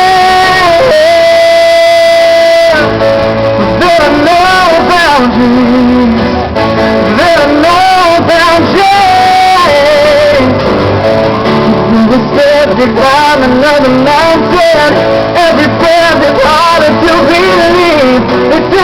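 A live band plays a pop-rock ballad while a male lead singer sings wordless vocal runs over guitar, opening on a long held note.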